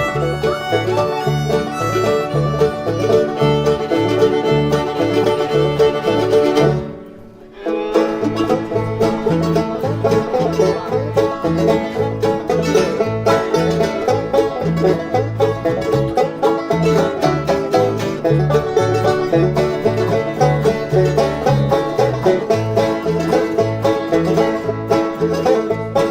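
An acoustic string band playing an instrumental break between sung verses, over a steady, rhythmic bass line. The music drops away briefly about seven seconds in, then picks straight back up.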